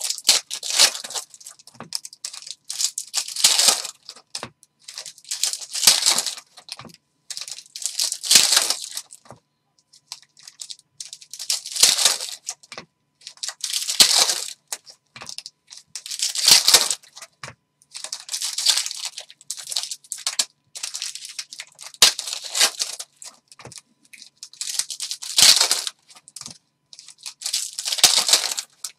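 Silver foil wrappers of Upper Deck hockey card packs being torn open and crinkled, one pack after another. About a dozen loud crinkling rustles come every two to three seconds.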